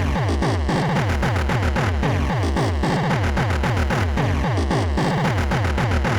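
Electronic soundtrack of an Amiga intro: a fast, driving bass line of short falling notes, several a second, over steady drum hits.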